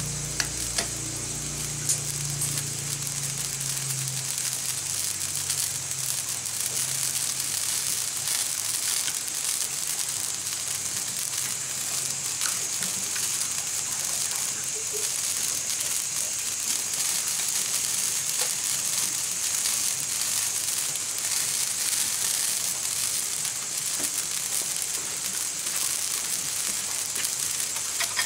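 Greens sizzling in a frying pan over an open wood fire: a steady hiss with scattered small crackles.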